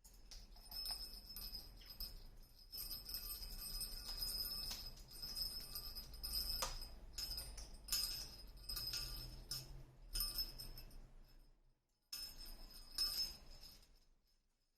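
A small bell on a pet bird's toy jingling over and over as it is jostled, with irregular clicks and rattles. It stops briefly about twelve seconds in, starts again, then dies away near the end.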